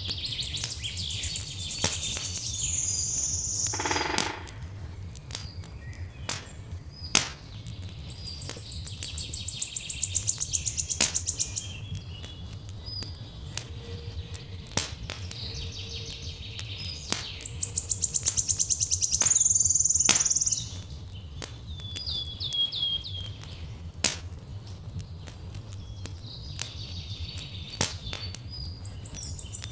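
Songbirds singing, with a high song phrase repeating every few seconds. Under the birdsong a wood fire crackles with scattered sharp pops, over a steady low rumble.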